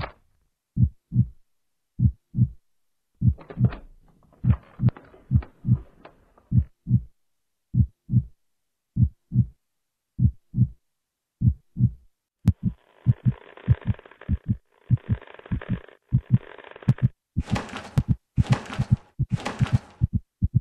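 Heartbeat sound effect: low thumps in lub-dub pairs that quicken as it goes. About two-thirds of the way through, rushes of hissing noise join the beats and grow louder and brighter near the end.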